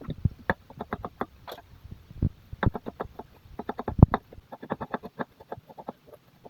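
An irregular run of short knocks and taps from kitchen utensils at work, several a second with brief pauses.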